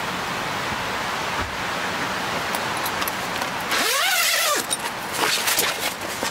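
A steady hiss in the background. About four seconds in, an air tent's door zipper is pulled open with a short rasp that rises and falls in pitch, followed by a few small clicks and rustles as the door flap is moved.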